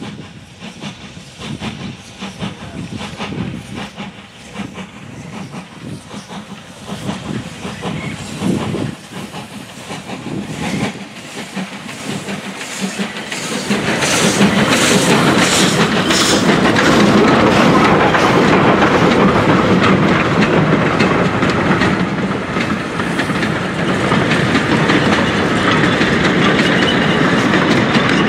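SNCF 140 C 38 2-8-0 steam locomotive working its train toward the listener, its exhaust beats growing steadily louder, then passing close about halfway through. After it comes the steady, loud clatter of its coaches and goods wagons rolling over the rails.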